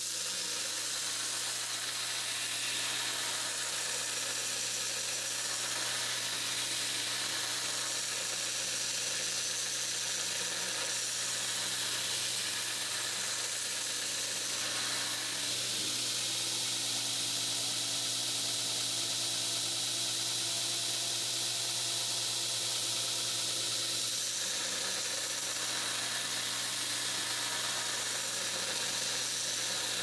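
Belt grinder running with a steady hiss over a low motor hum as a steel knife blade held in a bevel-grinding jig is ground against the abrasive belt at times. The machine's tone shifts a little about halfway through and again near the end.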